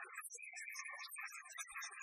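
Background music, thin and choppy, with no machine sound standing out.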